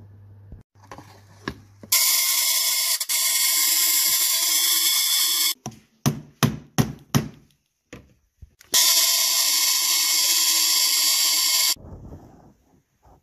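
Ford Model T trembler (buzz) coil firing on a coil tester: a loud, steady buzz from its vibrating points for a few seconds. Then a quick series of light hammer taps on the vibrator bridge to adjust the coil's current draw, and the coil buzzes again for about three seconds.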